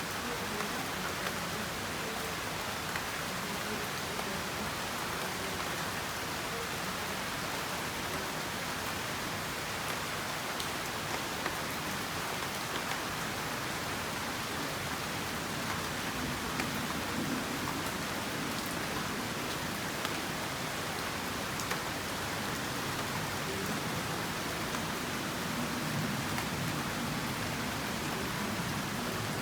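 Steady rain falling, an even hiss with scattered faint drop ticks throughout.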